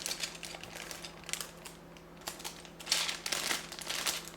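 Plastic bag of Lego pieces crinkling as it is opened and handled, in several rustling bursts with small clicks between them.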